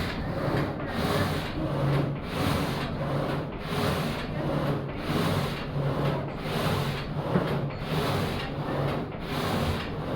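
Wind-powered sawmill's reciprocating frame saw cutting through a log, each up-and-down stroke a rasping pulse, about three strokes every two seconds in a steady rhythm, over the low rumble of the mill's drive.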